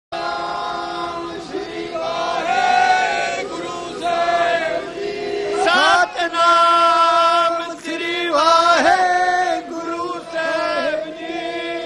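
Men's voices chanting a devotional chant together, holding long notes with sweeping slides in pitch.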